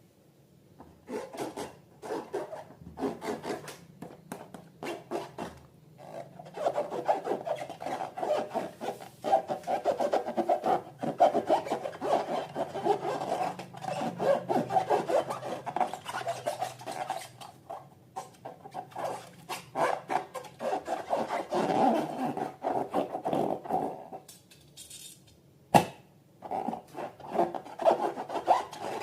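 Slime being mixed and worked, with rapid, rhythmic squishing and rubbing strokes. There is a short pause near the end with one sharp click before the strokes start again.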